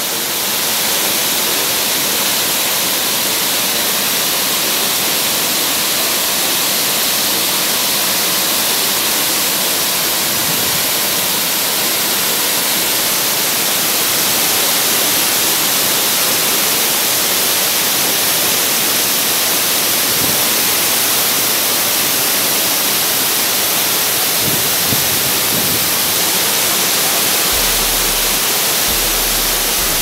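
Waterfall cascading over boulders: a steady, loud rushing hiss of falling water, unchanging throughout.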